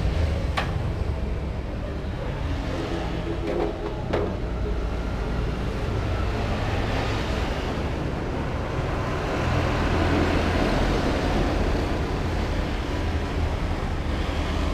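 Steady rumble of nearby road traffic with an engine hum underneath, swelling a little midway through, and two sharp clicks about half a second and four seconds in.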